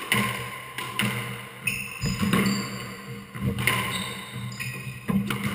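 Squash ball being struck by rackets and hitting the court walls in a rally: sharp echoing cracks, roughly one a second.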